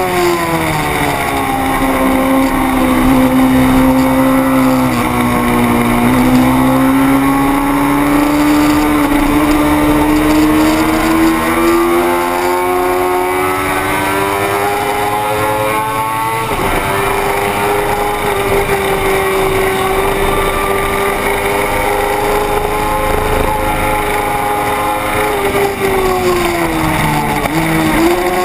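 600 cc racing motorcycle engine at speed on a circuit. The note falls as the bike slows, climbs steadily for about ten seconds under acceleration, dips sharply about two thirds of the way through at a gear change, runs fairly steady, and drops again near the end before picking back up.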